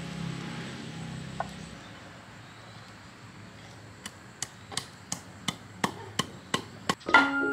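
Knife chopping on a wooden cutting board in steady strokes, about three a second, starting about halfway through. Background music fades out at the start and comes back in near the end.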